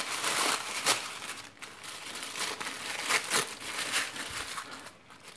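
Thin white wrapping crinkling and rustling as it is crumpled and pulled off a plug-in mains charger, in irregular crackles that die away near the end.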